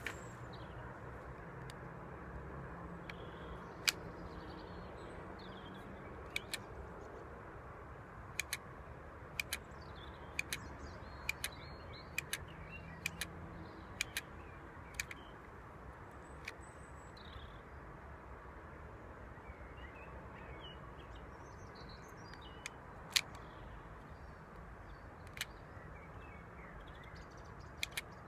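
Sharp plastic clicks of a LEGO blowback pistol's trigger and slide being worked, about twenty in all, many in quick pairs, with a pause of several seconds partway through. Faint bird chirps and a steady outdoor hush sit behind them.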